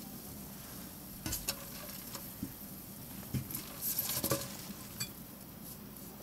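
Light clicks and scrabbling taps of a centipede and a cockroach struggling on a stainless steel sink as the centipede seizes the cockroach. The taps come in short clusters, about a second in and again between three and four and a half seconds in, with one more near five seconds.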